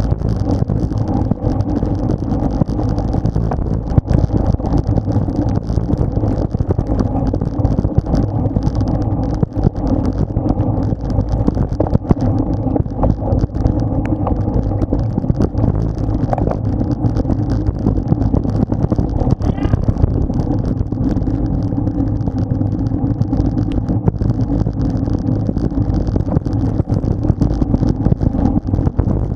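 Steady rush of wind and road noise on a bike-mounted action camera's microphone while riding at speed.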